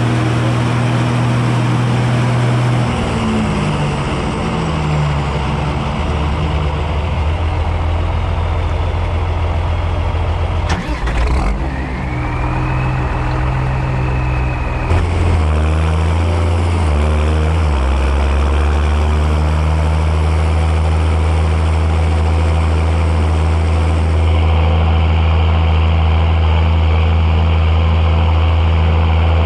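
John Deere 6910 tractor's six-cylinder diesel engine running. The engine note shifts about three seconds in and again around the middle, then holds a steady drone through the second half.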